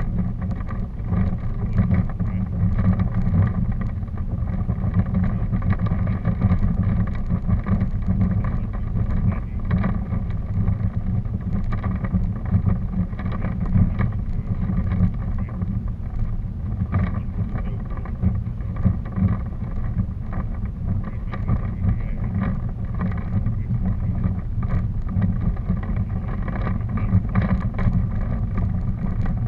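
Steady low rumble of wind and travel noise on the microphone of a camera moving along a forest path, with a faint steady hum underneath.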